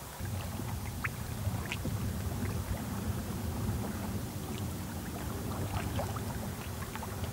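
Outdoor ambience on a lake: a steady low rumble of wind and water lapping, with a few faint, short high chirps scattered through it.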